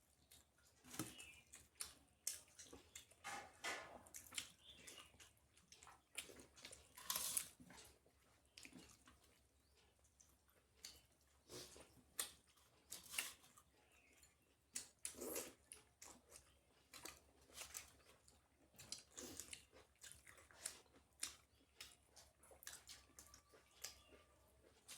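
A person chewing roti and curry close to the microphone, with irregular soft mouth smacks and clicks.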